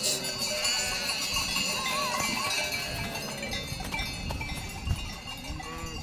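A flock of sheep bleating, a few wavering calls standing out over the general noise of the flock.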